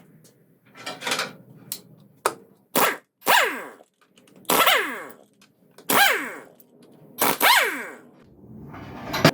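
Impact wrench run in several short bursts to loosen nuts, each burst falling in pitch as the tool winds down after the trigger is let go.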